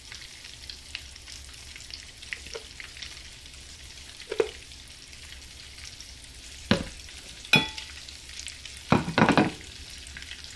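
Breaded cod frying in hot bacon grease: a steady sizzle. A few sharp clicks and knocks of utensils on dishes sound over it, one ringing briefly, the loudest cluster near the end.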